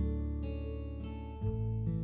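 Background music: acoustic guitar chords, a new chord struck about once every second and a half and left to ring.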